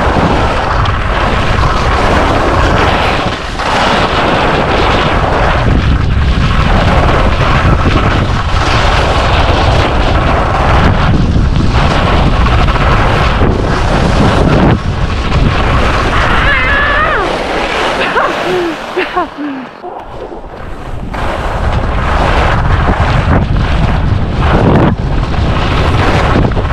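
Wind buffeting the microphone and Black Crows Atris skis scraping and carving over hardpacked groomed snow at speed, a steady loud rush that dips briefly about twenty seconds in.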